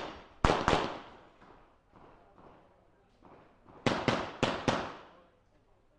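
Gunshots from a competitor shooting an IPSC stage: a quick pair, then after about three seconds four more fired in two quick pairs, each crack trailing off in a short echo.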